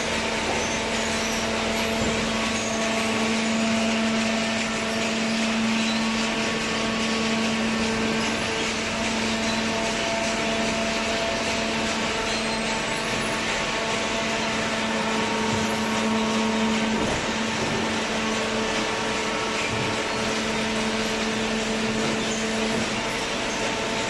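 Horizontal hydraulic waste-paper baler running: a steady mechanical hum and hiss with a low steady tone that drops out just before the end.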